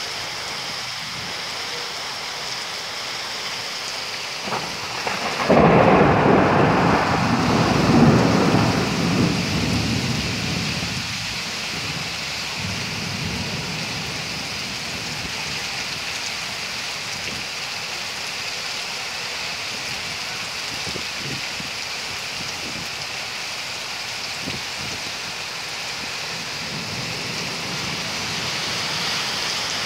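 Heavy rain hissing steadily. About five seconds in, a loud clap of thunder breaks over it and rumbles away over the next several seconds.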